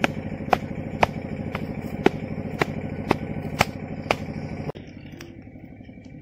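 Wooden stirring stick knocking against an iron kadai about twice a second as boiling jaggery syrup is stirred, over a steady low hum. About three-quarters of the way through, the knocking stops and the sound drops quieter.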